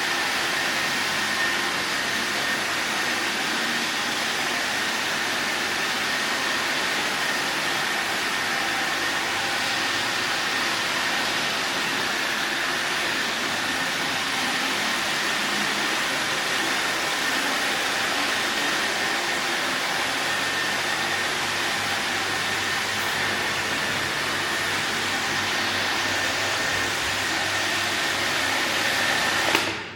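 Robot vacuum cleaner running steadily, its motor giving a steady high whine over a constant rushing hiss, and cutting off suddenly near the end.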